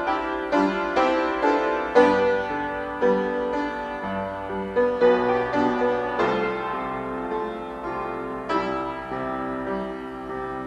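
Upright piano played solo: chords struck about twice a second at first, then held notes over sustained low bass notes with fewer new attacks.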